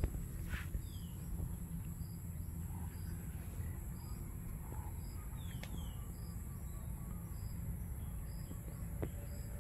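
Outdoor pasture ambience: a steady low rumble with a short, high chirp repeating about once a second, a few quick falling chirps, and a couple of faint clicks.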